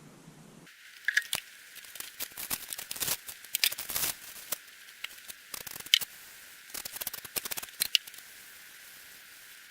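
Protective plastic sheeting being peeled off and crinkled, in irregular bursts of crackling, stopping a little before the end.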